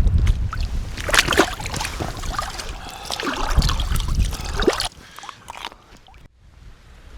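Water splashing and sloshing as a container is dipped into the loch and filled, with wind buffeting the microphone. The splashing and wind drop away sharply about five seconds in.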